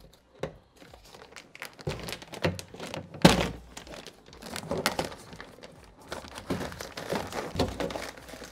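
Plastic vapor-barrier film being peeled off the inside of a truck door, crinkling and crackling as it pulls away, with scattered knocks and one sharper thunk about three seconds in.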